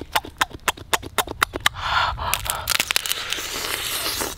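Cooked crab shell cracking and crunching as it is bitten and pulled apart by hand: a fast run of sharp cracks over the first two seconds, then fewer and quieter crackles.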